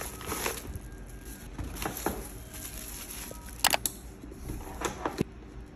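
Unboxing handling sounds: tissue paper rustling inside a leather saddle bag, and scattered sharp clicks of a gold-tone metal snap hook being clipped onto the strap ring, the sharpest a little under four seconds in.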